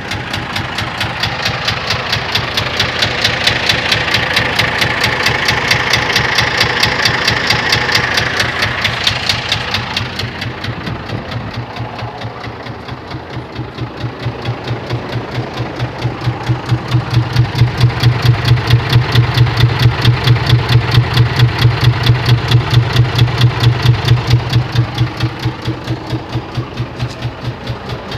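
Scania 124 truck's diesel engine running with a regular knock beating in time with the engine, a knock in the engine. The running swells louder twice.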